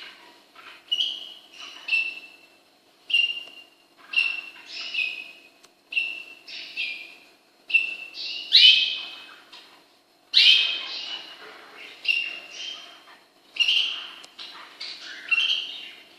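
Cockatiels calling: a steady string of short chirping calls, one or two a second, each dropping quickly in pitch and then holding. The loudest, harshest calls come about halfway through.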